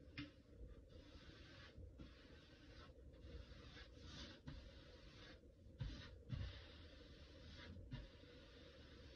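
Faint swish and scratch of a paintbrush's bristles dragged across a painted closet wall, in a series of strokes each a second or two long with short breaks between. Two soft low bumps about six seconds in.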